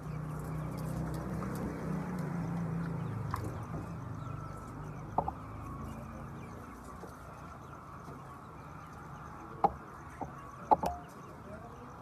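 A large flock of chickens clucking and murmuring together, with a few sharp single calls standing out, the loudest near the end.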